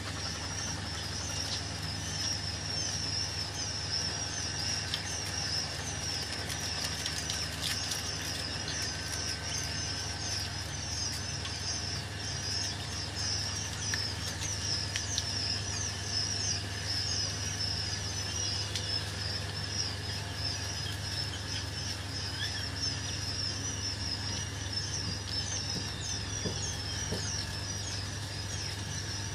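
A flock of caged laying quail chirping together: a dense, unbroken chatter of many short high chirps, over a steady low hum.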